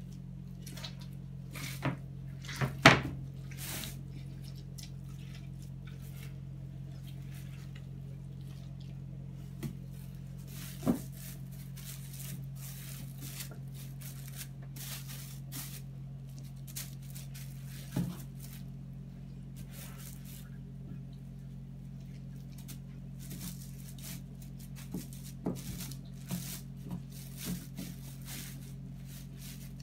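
Hands working wet newspaper papier-mâché pulp in a plastic bowl and pressing it around a glass bottle: scattered soft squishes, clicks and knocks, the sharpest knock about three seconds in and a cluster of them near the end, over a steady low hum.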